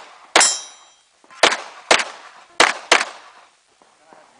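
Five gunshots in quick succession from a shooter working through a stage, the first followed by a brief ringing.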